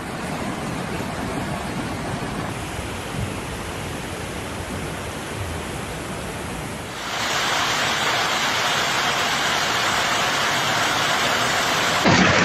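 Steady rushing noise with no clear pitch, stepping up louder and brighter about seven seconds in.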